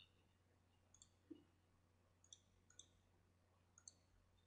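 Near silence with four faint, sharp clicks spread across it.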